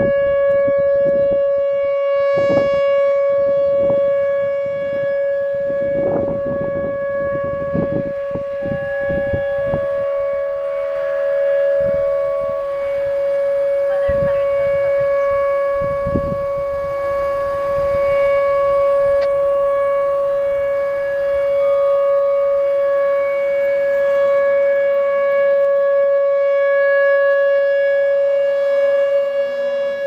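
Whelen Vortex R4 electronic rotating tornado siren sounding a steady alert tone during a test, one held note whose loudness swells and eases slowly as the speaker head turns. A few low thumps come through in the first half.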